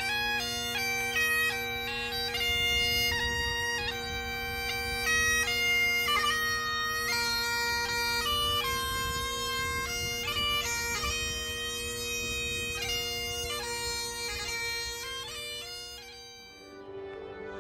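Great Highland bagpipes playing a tune: steady drones under a changing chanter melody. The piping stops near the end as other, softer music begins.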